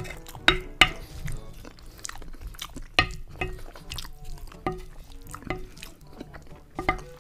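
Close-up eating sounds: wet chewing and mouth noises, with sharp clicks and scrapes of a wooden spoon scooping rice and sauce off a plate.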